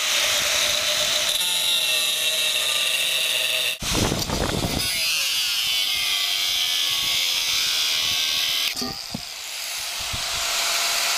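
Handheld 4-inch angle grinder with an abrasive cutoff wheel cutting through steel railroad rail: a steady, loud, high-pitched grinding. The sound changes abruptly about four seconds in and again near nine seconds.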